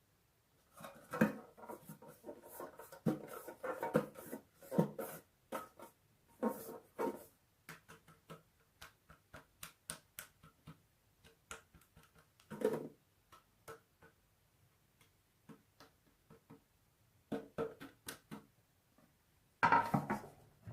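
Irregular clicks, knocks and scraping of objects being handled, in clusters: busy for the first several seconds, then scattered ticks, with louder knocks around the middle and again near the end.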